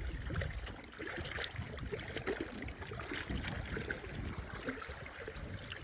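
Creek water running and trickling, with scattered faint ticks and drips.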